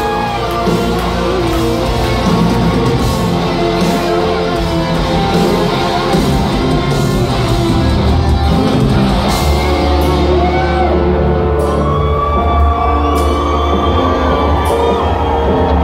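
Live rock band playing loud through a concert hall's PA, with singing and crowd yells mixed in.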